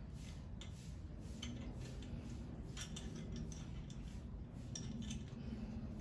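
Light, irregular metallic clicks and clinks of bicycle headset parts being handled and fitted on a fork steerer tube, over a low, steady rumble.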